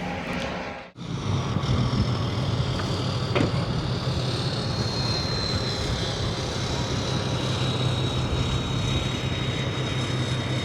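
A motor running steadily, a constant low hum under a wash of noise with a faint high whine, after a brief dropout about a second in.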